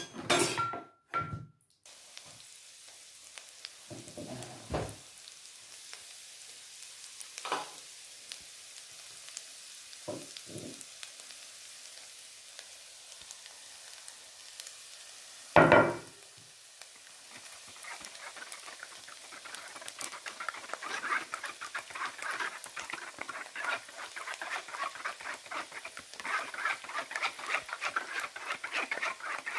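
Chopped shallots sizzling in oil in a frying pan, opening with a clatter of a plate and utensil against the pan and broken by a few knocks, one loud about halfway. In the second half a dense, rapid crackling and scraping builds as beaten egg is poured through a metal mesh sieve into the pan and pushed through with a wooden spatula.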